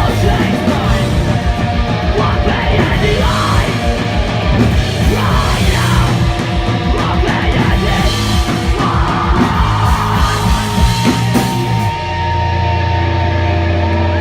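Punk rock band playing loud live through a concert PA: pounding drums, distorted guitars and yelled vocals. About twelve seconds in the drums stop and a held guitar tone and a steady low hum ring on.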